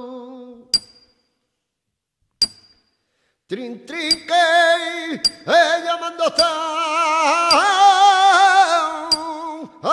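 Martinete: unaccompanied flamenco singing with wavering, ornamented lines, kept in time by sharp ringing metallic strikes like a hammer on an anvil. A held note dies away at the start, two lone strikes ring out over silence, and the singing comes back in about three and a half seconds in, with a strike roughly every second.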